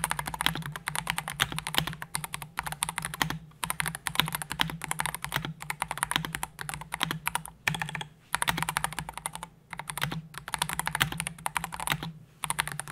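Typing sound test on an Akko 5075S gasket-mounted mechanical keyboard with a polycarbonate plate and pre-lubed Akko Jelly Black linear switches: fast, continuous keystrokes with a few brief pauses. The plate and gasket mount give a softer, lower-pitched typing sound.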